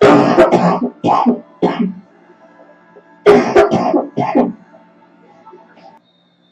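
A girl with a cold coughing in two fits: a hard cough followed by two shorter ones, then, about three seconds in, another run of three coughs.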